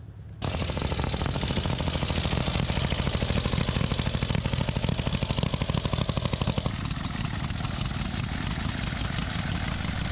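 Veteran (pre-1919) motorcycle engine running with a fast, even firing beat, just got going after a failed start. It cuts in abruptly about half a second in and shifts tone a little after six seconds.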